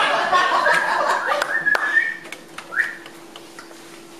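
A person whistling: a held whistled note, then a short rising whistle, over audience murmur and chuckling. A faint steady hum comes in about halfway through.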